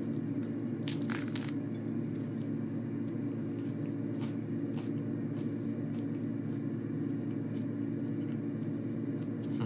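A person biting into a plant-based burger with a crunch about a second in, then chewing with faint, scattered mouth clicks. A steady low hum runs underneath.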